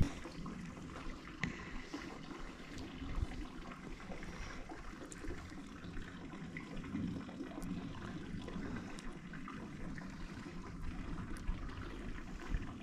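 Water lapping softly against a boat hull, with a few faint clicks scattered through.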